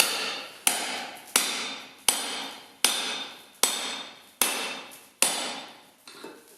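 Hand hammer striking a titanium punch to drive a hole through hot steel: about eight evenly spaced blows, a little under a second apart, each with a metallic ring that fades before the next. The last blow is weaker.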